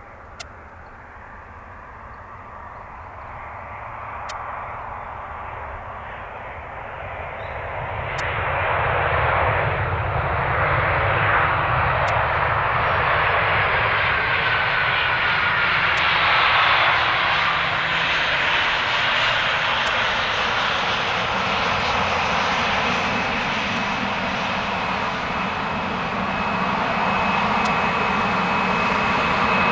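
Boeing 737-800 airliner on its landing roll, its jet engines making a steady roar. The roar swells over the first eight seconds or so, then stays loud, with a thin high whine in the later part.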